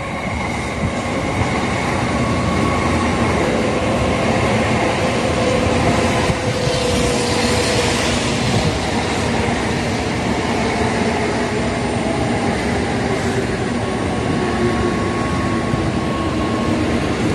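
N700-series Tokaido Shinkansen train running past along the platform: a steady, loud rumble of wheels on rail, with a few faint whining tones from the train that sink slightly in pitch.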